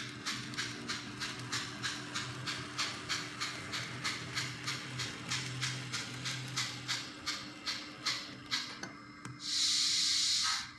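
DCC sound decoder in a Kato N scale GS-4 4-8-4 steam locomotive model, playing steam chuffs through its small speaker at about three a second. The chuffs stop, and near the end there is a loud hiss of steam lasting about a second.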